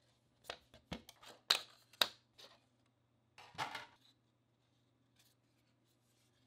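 Light plastic clicks and taps as a thin-walled PLA 3D print is handled and lifted off the printer's build plate, about half a dozen in the first two and a half seconds, then a short scrape of plastic being handled.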